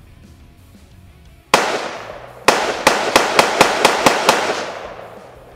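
Gunfire: a single shot about a second and a half in, then a rapid string of about eight shots, about five a second, each echoing and fading away.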